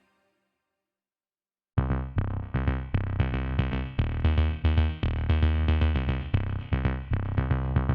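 Background electronic music with a drum-machine beat and heavy bass, starting abruptly after nearly two seconds of silence.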